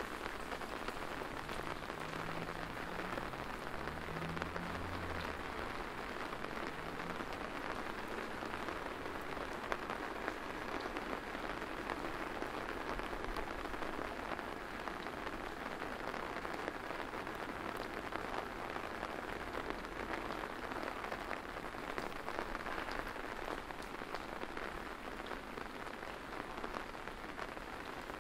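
Steady rain falling: an even hiss with many separate drops ticking close by.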